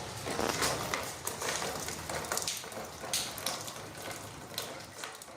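Heavy rain and running water, an even rush with many irregular sharp crackles and splashes, fading gradually toward the end.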